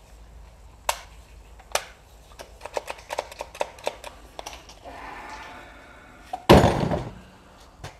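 A cordless drill handled in the hands: two sharp plastic clicks, then a quick run of lighter clicks and taps. About six and a half seconds in comes a louder thump with a rustling clatter.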